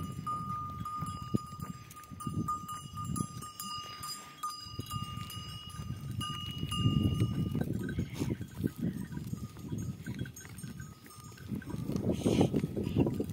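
Bells on a large herd of goats clinking and ringing as the animals graze and move about over stony ground, with the shuffling of many hooves close by. A held ringing note dies away about seven seconds in, and the shuffling grows louder near the end.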